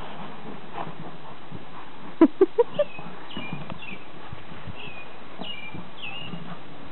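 A Golden retriever–Afghan hound mix gives four quick, short barks about two seconds in, each a little higher in pitch than the last. Small chirps, like a bird's, repeat in the background.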